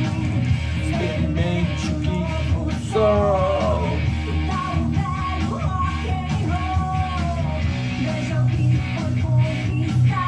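Rock song with electric guitars, a steady bass and drum beat, and a man singing with a rough, shouted voice.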